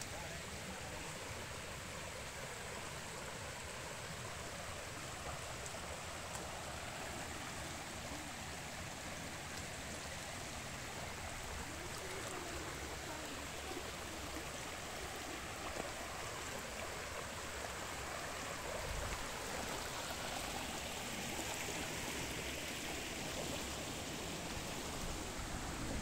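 Shallow mountain stream running over a rocky bed: a steady rush of water.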